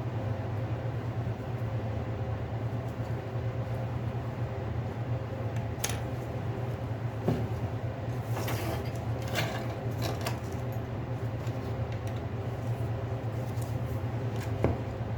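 Light clicks and small scrapes of hand tools and plastic or metal parts during a phone teardown: a few scattered ticks, then a quick cluster of them about halfway through. A steady low hum runs underneath.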